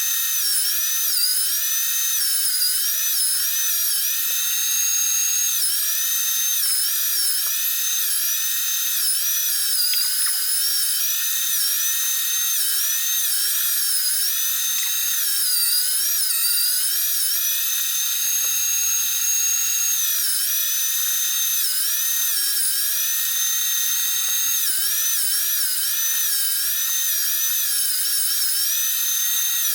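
STX Turboforce electric meat grinder running, its motor whine dipping in pitch and recovering again and again as the motor takes the load of venison being fed through.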